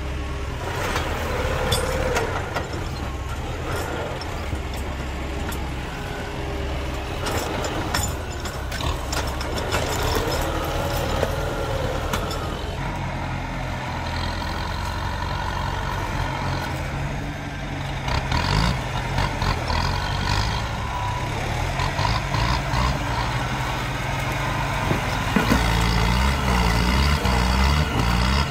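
Tractor engine running steadily under load as its front blade pushes against a tree stump, working harder and louder in the second half. Scattered sharp cracks about a third of the way in.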